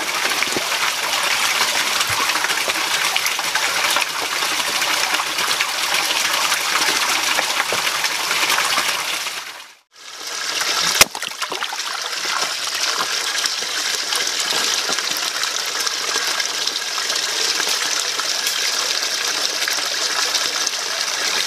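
Shallow forest stream running over boulders: a steady rush of water. It drops out for a moment near the middle, a single sharp click follows, and then the rushing resumes.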